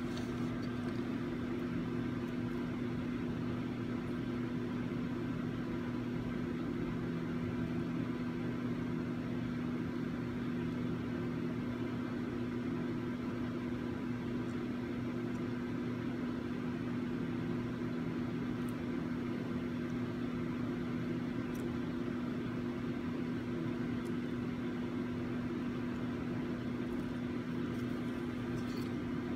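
Steady, unchanging machine hum with a low drone, with a couple of faint ticks partway through.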